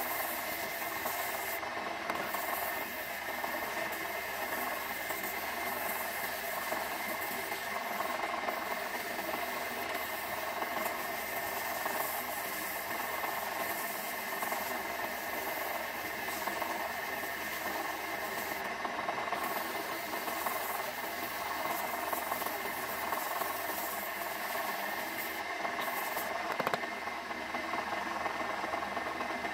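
Small electric motor from an old water pump running steadily with an even hum, spinning the disc of a homemade knife sharpener.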